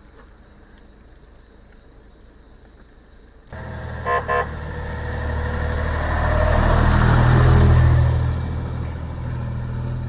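A Mercedes-Benz fire engine sounds two short horn blasts, then its engine passes close by, growing loudest a few seconds later and easing off as it drives away.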